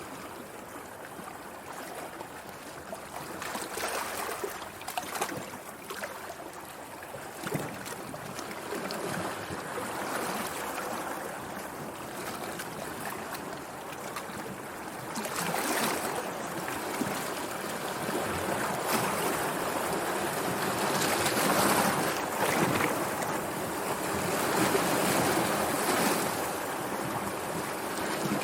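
Sea waves washing in and breaking: a continuous rush of surf that swells and falls back every few seconds, growing louder about halfway through.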